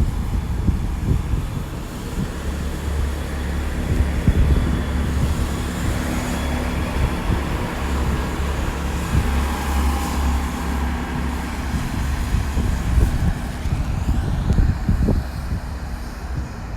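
A TfL Rail Class 345 electric train pulling out of the platform, its traction motors giving a rising whine near the end, over the steady low running of an idling Class 165 Turbo diesel multiple unit.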